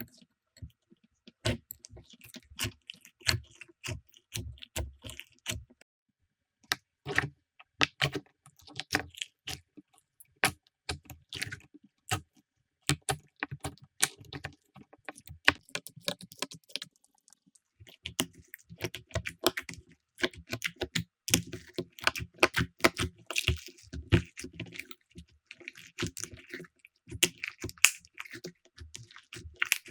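Slime being squeezed, poked and pressed by hand, giving rapid, irregular clicking and crackling pops, with two brief silent breaks.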